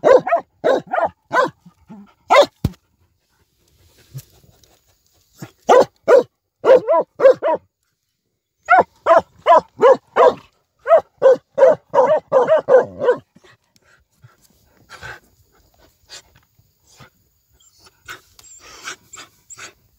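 Vietnamese native hunting dogs barking at a bamboo rat in its burrow, in three runs of rapid barks about three a second, falling to faint scattered sounds for the last several seconds.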